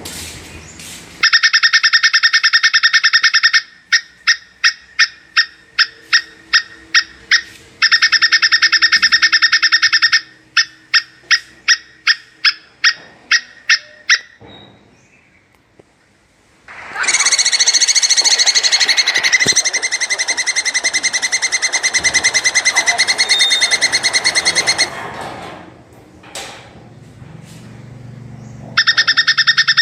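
Plantain squirrel calling: bouts of very fast, high chattering trills lasting two to three seconds, alternating with series of separate sharp chips about three a second. Midway a harsher, noisier call runs for about eight seconds, and near the end the fast trill starts again.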